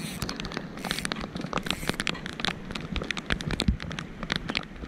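Rain falling: a steady hiss with many irregular sharp taps of drops striking close by.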